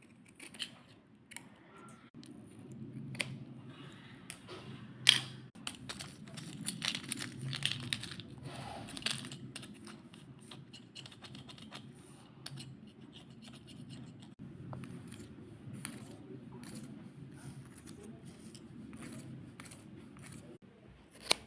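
Fidget board being played with: a run of small clicks and scratchy, rasping handling noises, with a sharp loud click about five seconds in and another near the end.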